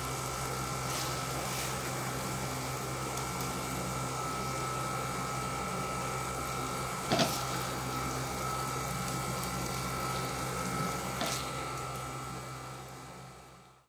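Steady kitchen hum with a faint high whine, broken by two light knocks of a plastic spatula against the serving plate, about seven and eleven seconds in. It all fades out near the end.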